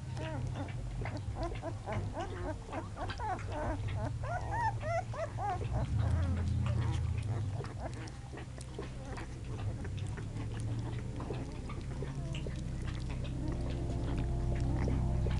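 A litter of young American pit bull terrier puppies squeaking and whimpering, a rapid jumble of short high cries over the first half that thins out to occasional squeaks, with faint clicks as they scramble over one another.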